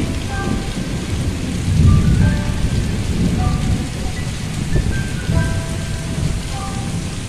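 Heavy cyclone rain pouring steadily, with deep rumbling surges that swell and fade every second or two. Faint short melodic notes sound over it.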